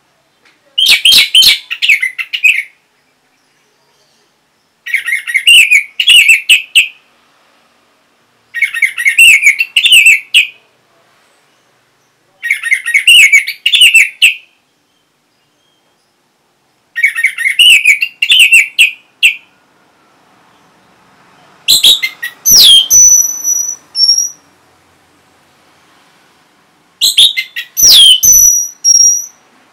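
Orange-headed thrush singing loud phrases of rapid, varied chirps about two seconds long, repeated every four seconds or so. The last two phrases change: a quick falling sweep, then long high steady whistles.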